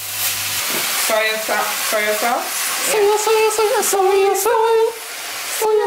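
Faint sizzling of minced meat frying in a pan, with a melody of held notes stepping in pitch coming in over it about a second in and becoming the loudest sound.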